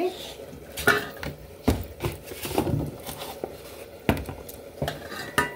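Kitchen utensils being handled: a series of separate knocks and clatters, about six, as steel vessels are moved and set down.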